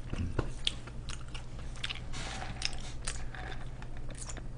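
A person chewing and biting fast food close to the microphone, with irregular wet crunches and mouth clicks.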